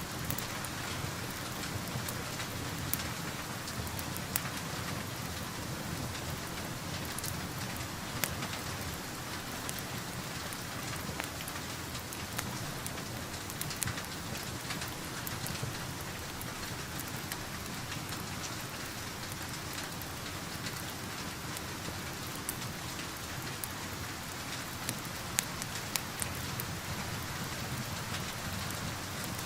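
Steady rain heard from indoors, with sharp crackles and pops from a wood fire every few seconds.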